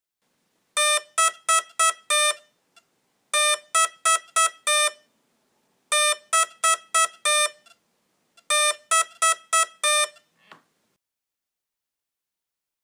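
Hitec Energy Sport brushless ESC sounding its programming tone for Heli Governor Mode set to Heli Mode 2: four groups of five short, quick beeps at one pitch, the groups repeating about every two and a half seconds.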